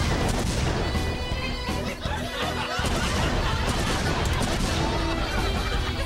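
A barbecue propane tank exploding in a fireball, a sudden blast at the start followed by crackling, over comedic background music.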